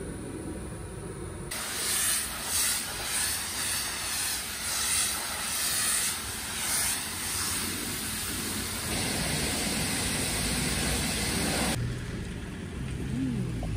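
A high-pressure washer jet spraying a van, a loud steady hiss that swells and fades several times as the spray sweeps across the panels. Near the end it cuts to a van engine running.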